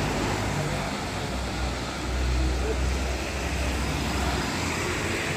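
Intercity coach driving past on a wet road: a low engine drone over the hiss of tyres on water, the drone fading about four and a half seconds in.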